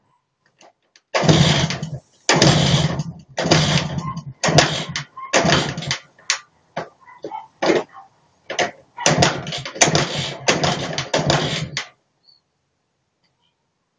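IZh Planeta 2's single-cylinder two-stroke engine being kicked over again and again, about once a second, in harsh bursts that do not settle into running. This is a start attempt after the seized piston group was replaced.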